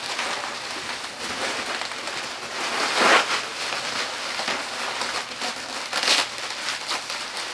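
Packing tape and cardboard being handled, with continuous crinkling and rustling and two louder rasps of tape being pulled, about three seconds and six seconds in.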